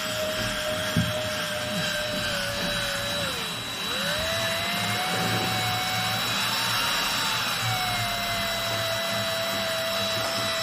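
Electric drill running while boring, its motor pitch dropping briefly about three seconds in as the bit is loaded, then rising and settling again.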